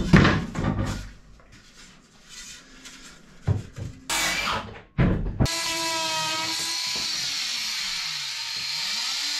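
Wooden boards knocked and shuffled into place, then a cordless drill starts about five and a half seconds in and runs steadily on wood. Its whine sinks in pitch as the bit bites and the motor slows under load, and rises again near the end.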